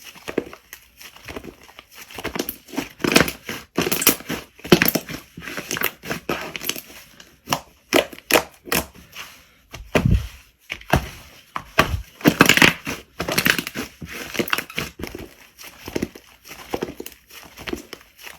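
Slime being squeezed and worked by hand: an irregular run of squishing and crackling sounds.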